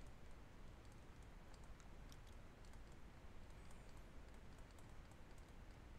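Near silence with faint, scattered taps and ticks of a stylus writing on a tablet screen, over low room hiss.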